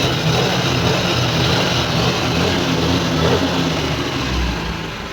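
TVS Scooty Pep+ single-cylinder four-stroke engine running steadily, freshly rebuilt with a new bore kit and piston and its timing reset, with the knocking tractor-like noise of the seized piston gone. Its sound falls away near the end.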